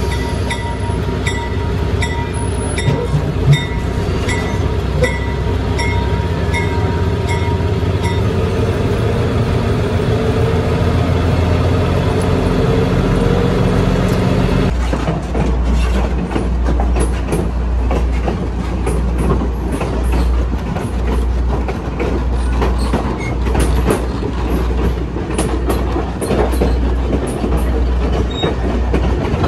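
A train rolling behind a small diesel switcher locomotive: the engine runs steadily, with regular clicks about one and a half times a second from the wheels over rail joints. About halfway through, the sound turns to a heavier, uneven low rumble with many short knocks.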